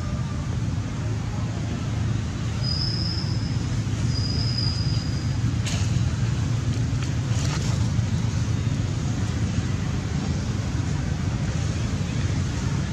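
Steady low outdoor rumble, with two short high whistles a few seconds in and a couple of brief clicks around the middle.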